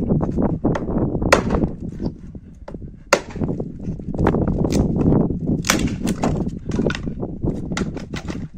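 Hatchet splitting firewood into thin kindling on a wooden chopping block: a run of sharp knocks and wood cracking, the loudest about three seconds in.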